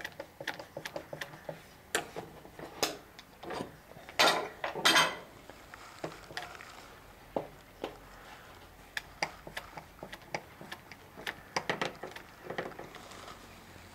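Metal woodworking clamps, F-clamps and one-handed trigger bar clamps, being handled and tightened on a wooden plank: a string of irregular clicks and knocks, with two longer rattling scrapes about four to five seconds in.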